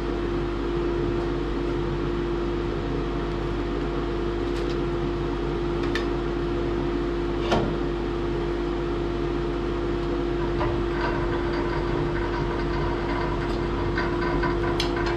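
Steady hum of a running motor or fan-like machine, one constant tone over a low drone. A few sharp clicks and knocks of metal clamps being set on the log, the loudest about seven and a half seconds in.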